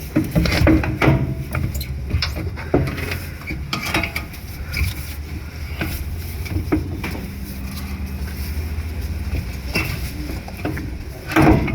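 Metal clinks and knocks from tools and the loosened steering rack being worked free and shifted under the vehicle, over a steady low hum.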